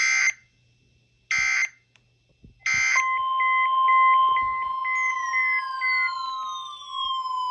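Emergency Alert System header tones: three short, screechy digital data bursts about 1.3 seconds apart. About three seconds in, a steady single-pitch alert tone begins, with short repeated beeps over it. From about five seconds in, tones falling in pitch join it.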